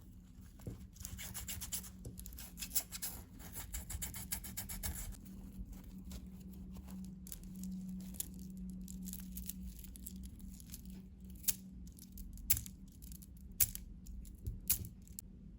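Packaging handled close to the microphone: crinkling and rustling for the first few seconds, then softer rubbing, with several sharp clicks near the end.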